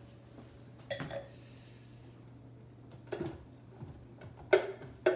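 A few short, sharp knocks and clicks as a wine glass is set down on a stone countertop and a blender jar's lid is handled. The loudest knock comes about four and a half seconds in.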